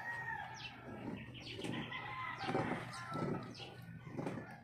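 Chickens clucking and calling in the background, joined by light splashing and dripping of water as a small model boat is lifted out of a basin of water.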